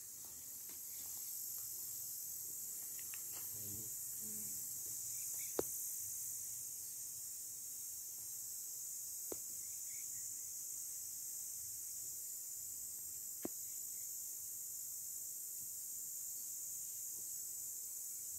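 Insects chirring in a steady, high-pitched chorus, with three sharp clicks about four seconds apart.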